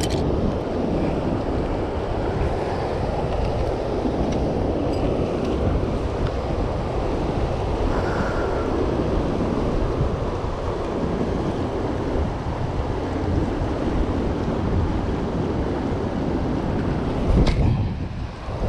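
Steady rush of churning tailwater released through a dam's running generators, with wind buffeting the microphone. A single sharp knock near the end.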